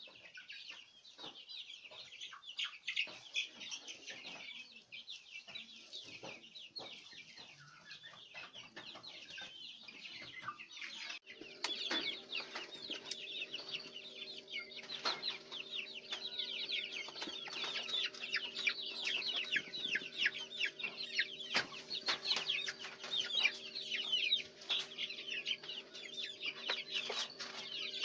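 A flock of chickens calling continuously: many short, high-pitched peeping calls overlapping one another. A steady low hum joins underneath about a third of the way in.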